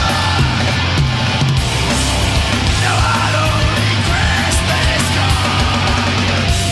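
Loud live heavy rock band: distorted electric guitars, bass and drums, with a man's shouted, yelling vocal over them.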